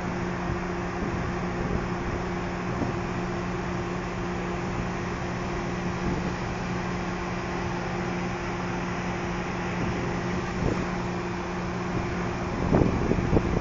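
Steady low drone of a large ship's engines and machinery, with a constant two-note hum under it. Near the end, wind buffets the phone's microphone in uneven bumps.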